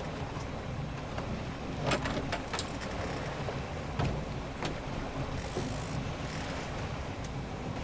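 A boat's engine running under way, a steady low rumble mixed with water noise, with a few short sharp clicks or knocks.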